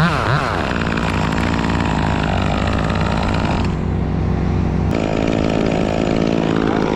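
Chainsaw running, its pitch swinging up and down quickly a few times at the start, then held at steady high revs.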